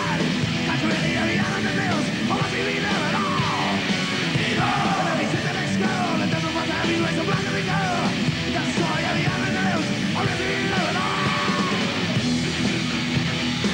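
Heavy metal band playing live: distorted electric guitar and bass over drums, loud and dense, with a run of high notes that slide downward in pitch over and over.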